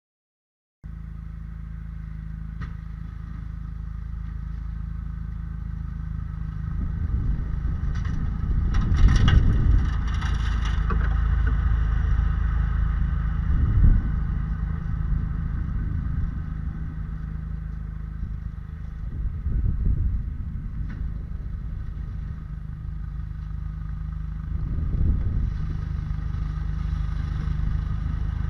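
A vehicle's motor running steadily, swelling louder every few seconds.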